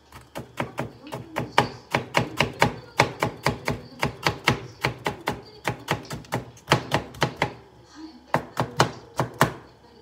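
Kitchen knife slicing a cucumber into thin rounds on a cutting board: quick, even knocks of the blade on the board, about four a second, with a short pause about three-quarters of the way through.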